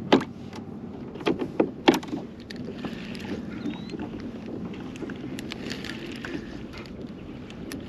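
Handling noise aboard a small fishing boat: four sharp knocks in the first two seconds, then lighter clicks over a steady low background of water and wind.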